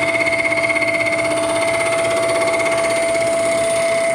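Vertical milling machine decking the cast-iron deck of a 1927 Chevy engine block, the cutter running steadily with a high whine. With the head trammed at zero, the cutter drags on the back side of each pass.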